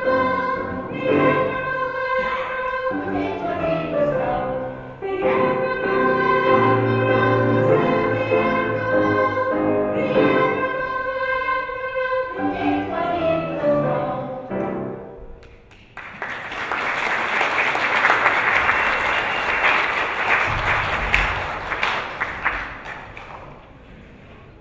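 Group of children singing a cantata song, which ends about 15 seconds in, followed by audience applause that dies away near the end.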